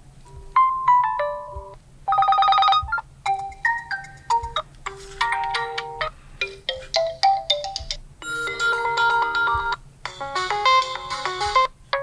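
Realme 9 Pro smartphone ringtones playing one after another: several short electronic melodies of clear, quick notes, each cut off by a brief break before the next tune starts.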